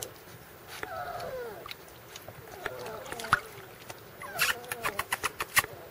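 Five-week-old Weimaraner puppy whimpering in three short, high, wavering whines, followed near the end by a quick run of sharp clicks.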